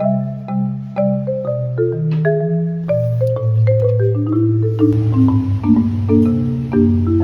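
Background music: a melody of short struck mallet-like notes stepping down and up over held bass notes, with a soft hiss joining in about five seconds in.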